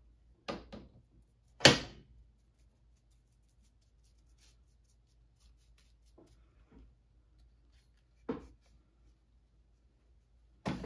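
Small knocks and taps from painting tools being handled, with one sharp knock about two seconds in and a couple of softer clicks later, very quiet between.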